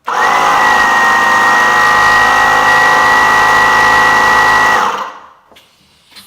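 Air compressor running steadily for about five seconds, pumping up a punctured ball, with a steady high whine over its motor; it starts abruptly and winds down near the end.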